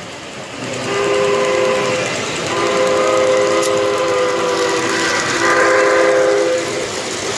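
Whistle of a model steam locomotive on three-rail track, sounding three held blasts, the middle one the longest, over the running of the model trains.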